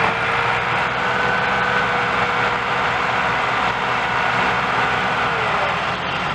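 Massey Ferguson 260 tractors' diesel engines running hard and steady under heavy load, pulling a loaded sugarcane trolley through soft field soil. The engine pitch dips slightly about five seconds in.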